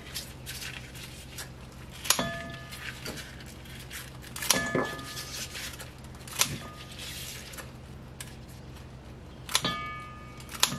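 Kitchen scissors snipping garlic scapes over a stainless steel bowl: several sharp clicks a second or two apart, a few ringing briefly off the steel.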